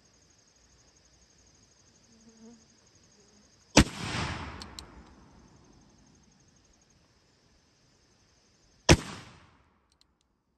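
Two shots from a Pietta reproduction Remington 1858 New Model Army cap-and-ball revolver, about five seconds apart. Each is a sharp crack followed by an echo that dies away over a second or two, and the first echo lasts longer. Insects buzz steadily underneath.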